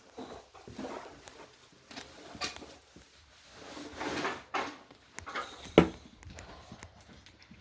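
Scattered knocks, clicks and rustling from people moving about in a small room, with one sharp knock a little before six seconds in.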